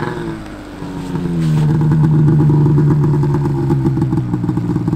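Snowmobile engine easing off over the first second, then held at steady revs as a loud, even drone.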